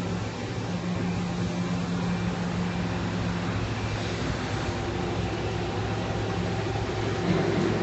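Machine-shop machinery running: a steady low hum with a broad whir over it, swelling slightly near the end.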